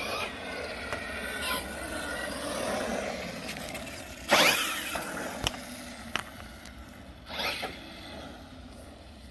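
Kraton RC car running, its electric motor whining and its tyres scraping. There are two sharper, louder passes, about four seconds in and again about seven seconds in, where the whine sweeps down in pitch.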